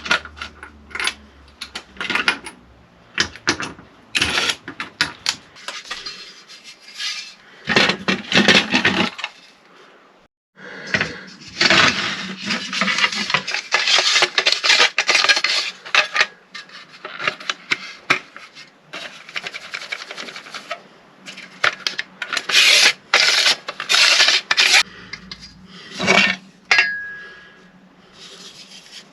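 Parts of a Kreg circular saw guide jig being handled and fitted together: irregular clicks, knocks and rubbing of plastic and metal pieces, with longer stretches of scraping and rustling.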